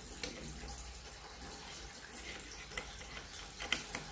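A few light metallic clicks as the Kinu M47 hand grinder's top nut and crank handle are fitted and pressed down, the sharpest a quick pair near the end, over a steady faint hiss.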